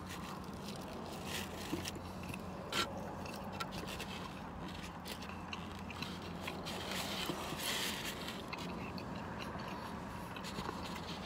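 Eating sounds: chewing buttered toast, with plastic fork and knife scraping and clicking against a styrofoam takeout container, over a steady low hum. One sharper click comes a little under three seconds in.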